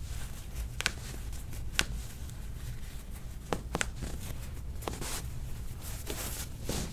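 A paper towel crinkling and rustling as hands wrap it around a bare foot, with a few sharp crackles and a longer rustle near the end, over a low steady hum.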